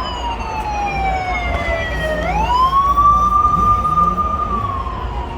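A siren wailing: its pitch falls slowly, sweeps quickly back up about two seconds in, holds, then starts falling again near the end.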